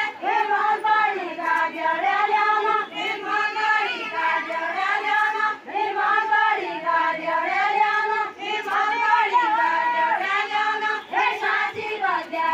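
A group of women singing a deuda, the Far-western Nepali folk round-song, together in one high melodic line in phrases, without instruments.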